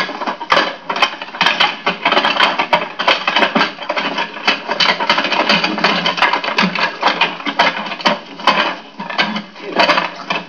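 Wooden folding chair clattering and creaking as it is wrestled open, with many sharp clicks over a dense, hissy old film soundtrack.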